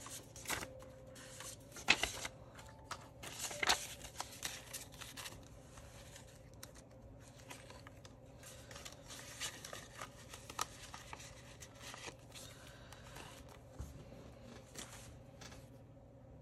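Paper banknotes being handled: a run of irregular rustles, flicks and crinkles as bills are counted and slipped into a cash-envelope binder, over a faint steady hum.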